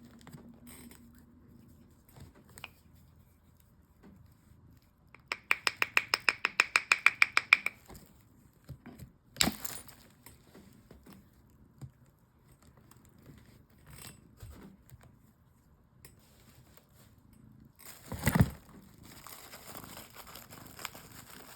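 Rock slabs and packaging being handled on a table. A rapid clicking rattle of about eight clicks a second lasts a couple of seconds, followed by scattered knocks; a sharp knock comes near the middle and the loudest, a heavy thump, comes near the end.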